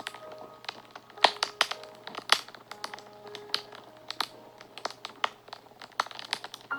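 Wood fire crackling and popping: irregular sharp snaps, the loudest about a second and two seconds in, over faint soft notes of background music.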